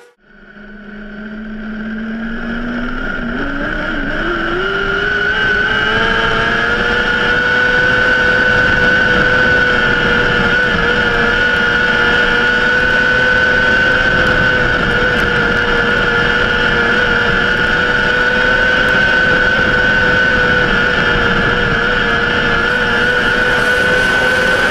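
600cc micro sprint car's motorcycle engine heard from on board, its pitch rising over the first few seconds as it accelerates, then holding steady at high revs.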